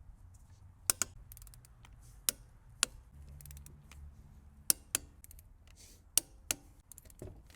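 Click-type torque wrench clicking as the lug nuts reach its 95 ft-lb setting: sharp clicks, mostly in close pairs, every second or two.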